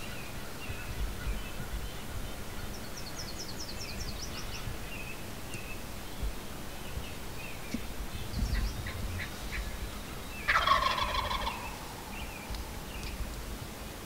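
Wild turkey gobbler gobbling once, loud and close, about ten and a half seconds in. A faint run of quick high ticks comes a few seconds in.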